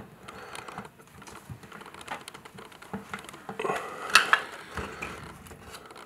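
Screwdriver backing a screw out of a plastic ceiling mounting bracket: a run of small clicks, ticks and scrapes, with a louder cluster of clicks and rattles about four seconds in.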